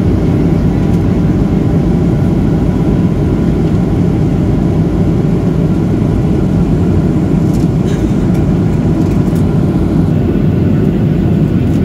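Steady low roar inside the cabin of a Boeing 737-800 in flight: engine and airflow noise heard from a window seat over the wing.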